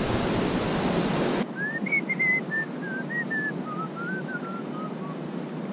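Steady rushing of river water below waterfalls that cuts off abruptly about a second and a half in. Then a bird sings a descending series of about a dozen short, clear whistled notes, each note slurred slightly upward.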